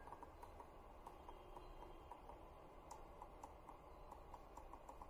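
Near silence with faint, irregular small ticks from fingertips tapping and sliding on the GPD Duo's solid touchpad, which has no mechanical click button.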